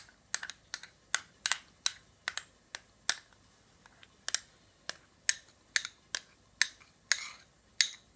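A spoon tapping against a container: a run of sharp clicks, roughly two a second, with a short pause a little past the middle.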